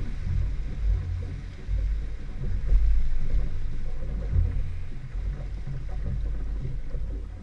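Outboard motor running at low speed, pushing the boat through the water: a low, uneven rumble with water wash.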